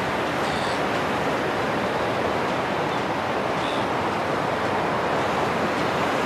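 Steady wash of ocean surf and wind on a beach, an even rushing noise with no pauses. Two brief faint high chirps sound over it, about half a second in and again near four seconds.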